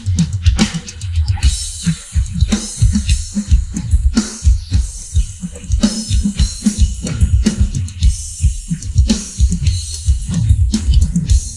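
Rock drum kit played on its own: a dense run of fast hits on the drums, with cymbals ringing over them from about a second and a half in.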